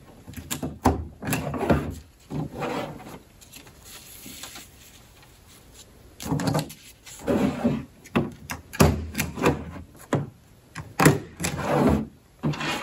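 Desk stapler clacking as it staples paper pennants to a yarn string, with paper rustling as the pennants are handled. A quieter stretch comes in the middle.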